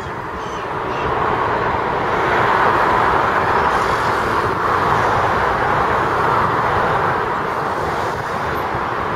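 Steady urban traffic noise, a dull rushing hiss that swells over the first few seconds and eases a little near the end.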